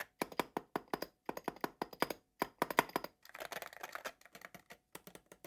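Typing on a Wooting 60HE Hall-effect keyboard fitted with Cerakey ceramic keycaps: fast runs of key clacks, broken by short pauses between bursts.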